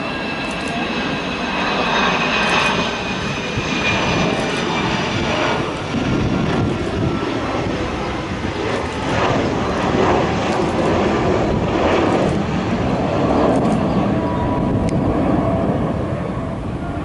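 Boeing 737-200's twin Pratt & Whitney JT8D turbofan engines on landing approach: a loud, steady jet roar with a high whine above it.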